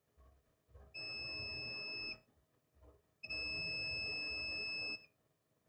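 Multimeter continuity beeper sounding twice, a steady high-pitched tone held about a second, then again for nearly two seconds, as the probes touch points joined by a conducting path on the TV motherboard.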